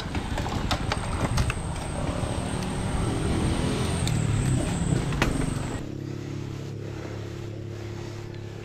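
Mountain bike rolling fast over rough concrete: tyre rumble and rattling clicks from the bike. A motor vehicle's engine rises in pitch about three to five seconds in. About six seconds in the noise drops suddenly to a steadier, quieter low hum.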